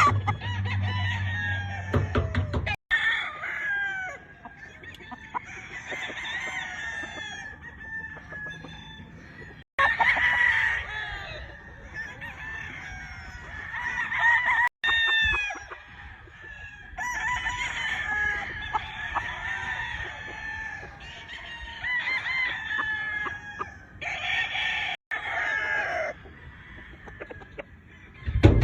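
Several roosters crowing over and over, their crows overlapping, with chickens clucking in between.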